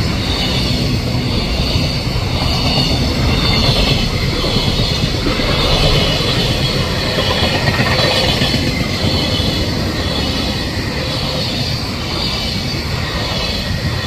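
A long freight train's container flatcars and tank wagons rolling past close by: a steady low rumble of wheels on the rails under a high rushing hiss from the wheels.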